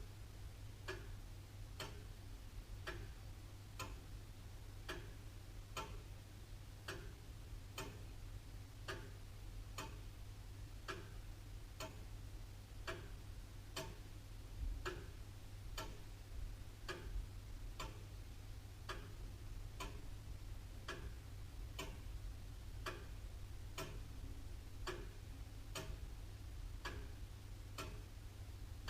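Antique William Holliwell Liverpool clock ticking steadily, about one tick a second.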